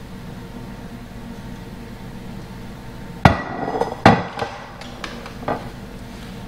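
A glass mixing bowl knocked down onto the kitchen counter, two loud knocks about a second apart with some clatter, followed by a few lighter taps of a spatula against the glass.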